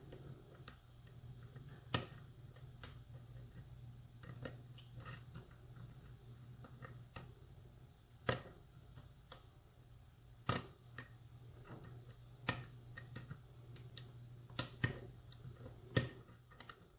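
Faint, irregular sharp metallic clicks of a lock pick and tension wrench working the pin stack of a pin-tumbler lock, over a steady low hum.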